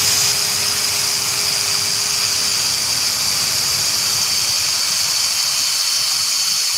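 Drill driver on its fast speed setting boring a 10 mm hole into an oak board: a steady high whine over the noise of the bit cutting, the pitch dipping slightly near the end.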